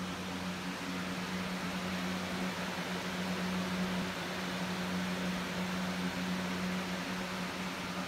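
Air conditioner running: a steady low hum under an even rush of blowing air.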